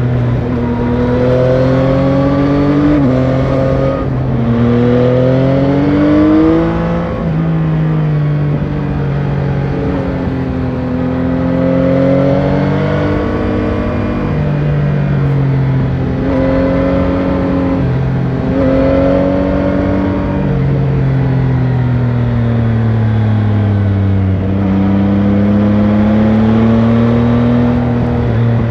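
Yamaha Tracer 9 GT's 890 cc inline three-cylinder engine on the stock exhaust, heard from the rider's seat. Its note climbs and falls again and again as the bike accelerates and eases off, with sudden drops in pitch about three and seven seconds in, over a steady rushing noise.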